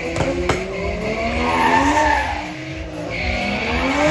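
Two drag cars launching from the start line and accelerating hard away. Their engines rev up, drop at a gear change midway, then climb again, with two sharp cracks about half a second in.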